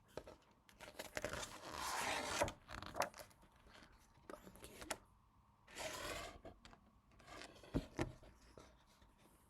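Pages of a glossy album photo book being handled and turned: soft paper swishes and rustles, twice, with a few light taps and clicks in between.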